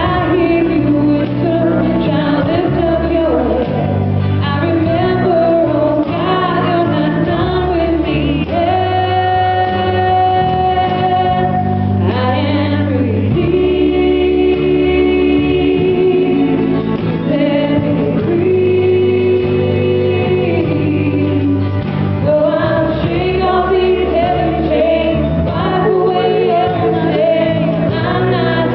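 Gospel singing by a group of voices with instrumental backing, including several long held notes.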